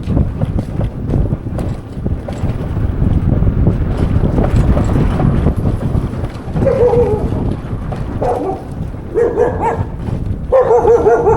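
Wind buffeting the microphone, then from about halfway through a dog barking about five times, short pitched barks roughly a second apart.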